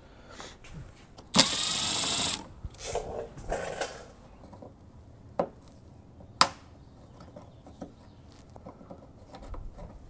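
A cordless power screwdriver runs for about a second, then twice more in short runs while backing out bumper screws. Two sharp clicks follow.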